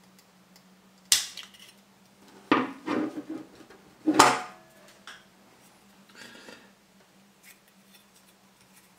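Tin snips cutting through thin-walled copper pipe, with a sharp snip about a second in, then a run of metallic clacks and a louder clatter as the snips and the cut copper piece are set down on the tabletop.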